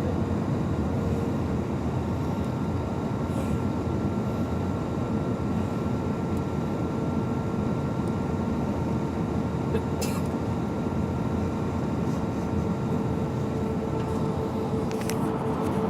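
Airliner cabin noise in flight: a steady loud rush of engine and air noise with a faint steady hum running through it. A light click about ten seconds in and another near the end.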